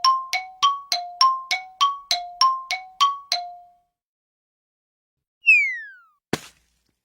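Cartoon sound effect of metallic dings struck in quick alternation between two pitches, about three a second, stopping about three and a half seconds in. After a pause comes a short falling whistle, then a single sharp knock.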